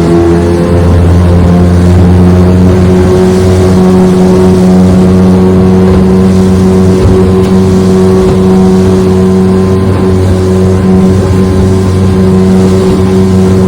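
1996 Johnson 15 hp two-cylinder two-stroke outboard motor running steadily under way on a test run, a loud even drone. Its pitch rises slightly about a second in as it picks up speed, then holds.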